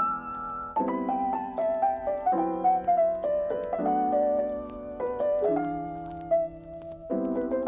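Background piano music: a gentle melody of single notes over held chords that change every second or two.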